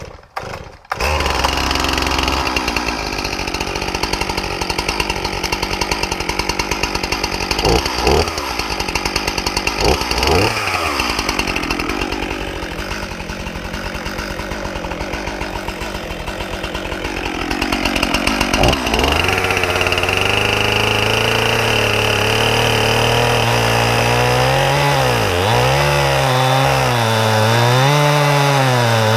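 Stihl MS 261 C-M two-stroke chainsaw starting about a second in and running, with a few brief changes in engine speed. From about two-thirds of the way through, its engine pitch repeatedly dips and recovers as it cuts into the log.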